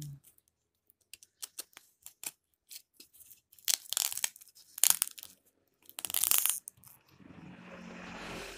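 Plastic parcel packaging being handled and crinkled: scattered sharp crackles and a few loud rustling bursts, then a steadier rustle building near the end.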